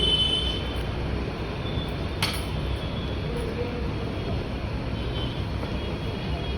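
Steady low background rumble, with one sharp click a little over two seconds in.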